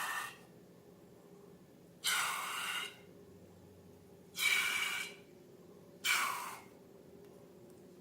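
Four short, breathy hissing bursts of air, each lasting well under a second, about every two seconds.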